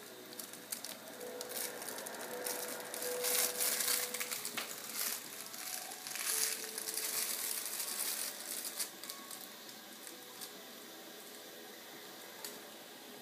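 Rustling and crinkling with small clicks as a baby moves and plays in his crib. It is busiest from about two to nine seconds in, then dies down.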